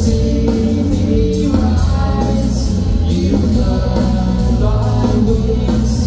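Live shoegaze rock band playing loudly: electric guitars, bass and drums with a sung vocal line over them, recorded from the audience.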